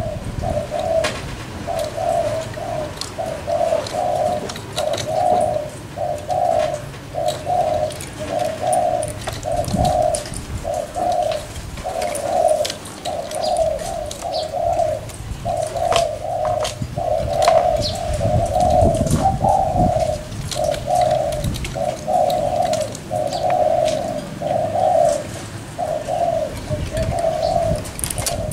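Two caged spotted doves in a cooing contest, trading short low bowing coos in a near-continuous run of about one to two notes a second.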